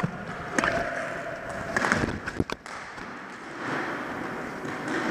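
Floor hockey play on a hardwood gym floor: scattered sharp clacks of plastic sticks and ball striking the floor, with two knocks close together about two and a half seconds in. A steady rushing noise comes in over the last second or so.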